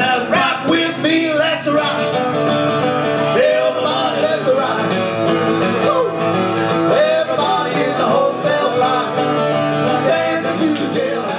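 Live acoustic duo music: a strummed acoustic guitar with a wavering, bending lead melody over it.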